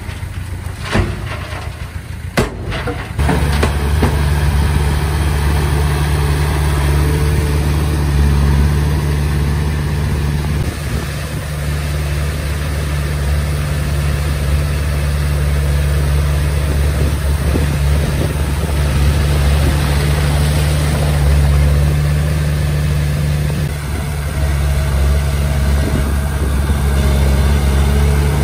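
Komatsu D20P bulldozer's diesel engine running steadily, becoming much louder about three seconds in.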